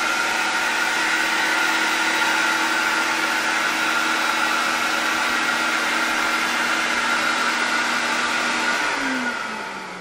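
Onboard vacuum motor of a Desiderio Plus commercial steamer running steadily with a rushing noise and a hum. Near the end its pitch slides down and the sound fades as the motor winds down.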